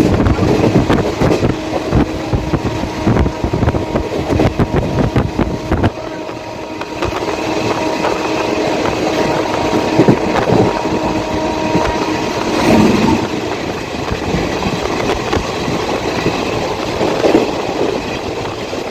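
Express train passing at speed, its coaches clattering over the rail joints with heavy rumble for about six seconds, then a steadier, lighter rumble.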